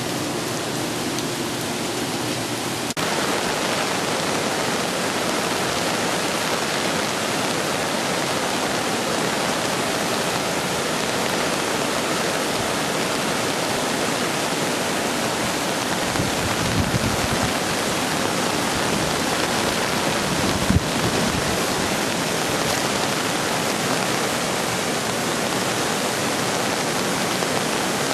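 Steady rush of storm floodwater, an even noise that gets a little louder about three seconds in. Two brief low thumps come near the end of the middle stretch.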